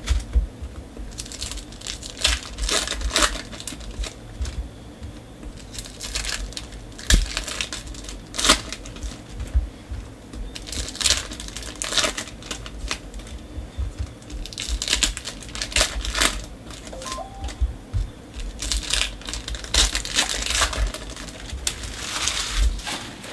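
Foil trading-card pack wrappers crinkling and tearing as packs are ripped open by hand, in irregular bursts every second or so, with the cards inside being handled.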